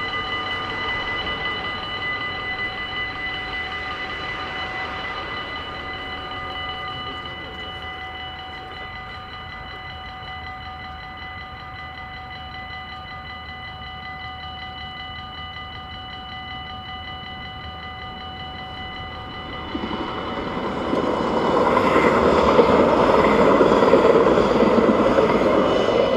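Dutch level-crossing warning bells ringing steadily while the red lights flash and the barriers lower. About twenty seconds in, a train's rushing running noise rises and becomes the loudest sound as it passes.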